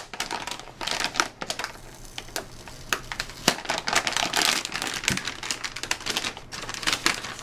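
Metallic anti-static bag crinkling and crackling as it is handled and opened around a graphics card, in irregular sharp crackles that come thickest a little past halfway.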